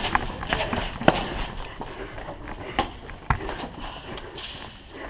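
Player running in airsoft gear: irregular footfalls and knocks of equipment.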